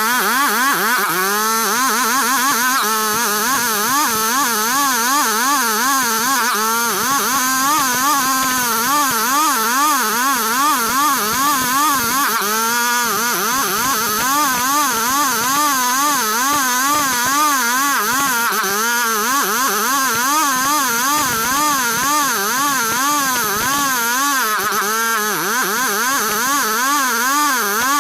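Small engine of a wood saw running flat out while cutting ulin ironwood, its pitch wavering up and down about twice a second as the load on the blade changes.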